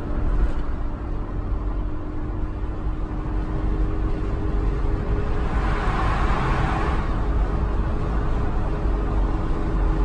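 Road noise inside a moving car's cabin at highway speed: a steady low rumble of tyres and engine with a faint steady hum. A swell of louder noise rises and falls about six seconds in.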